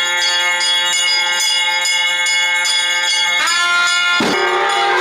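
Temple bell rung continuously in quick repeated strokes, its tones ringing on between strikes. About three and a half seconds in, a held note with a rising start joins, and a single sharp thump sounds just after.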